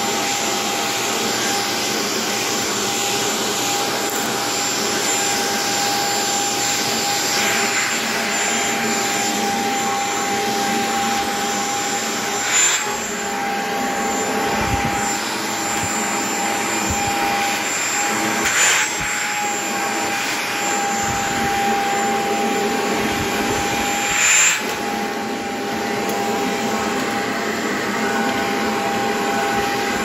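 Shark stick vacuum running steadily on carpet, its motor holding a constant whine over the rush of suction. Three brief bumps, about six seconds apart, briefly dip the motor tone.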